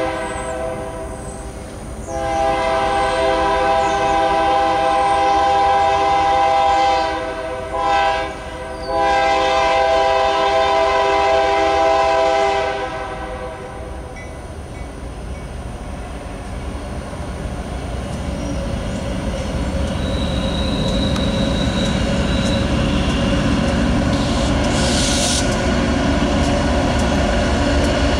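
Diesel locomotive air horn on a BNSF GE AC44CW sounding the grade-crossing signal as a chord: a long blast ending just after the start, another long blast, a short one and a final long one, ending about 13 seconds in. Then the low rumble of the lead locomotives grows louder as the train approaches and passes.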